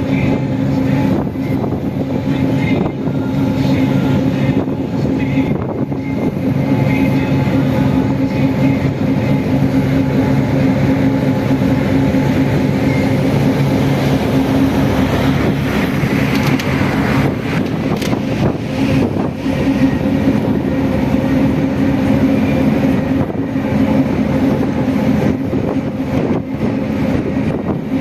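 A pleasure boat's engine runs steadily: a constant low hum over a continuous rushing noise.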